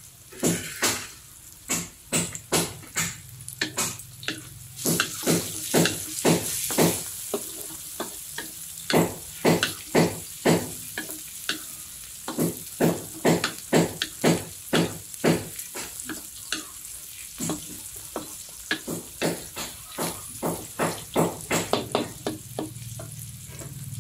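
Wooden spatula scraping and knocking against a metal wok, about two strokes a second, while chopped onion and garlic sizzle in hot oil.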